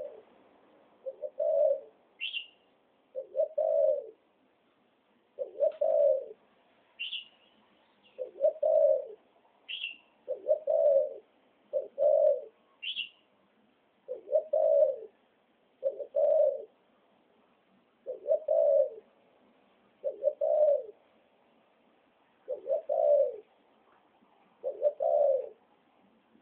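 Caged hybrid dove with spotted-dove plumage cooing, repeating short low coo phrases every second or two. A few short, high chirps cut in between them.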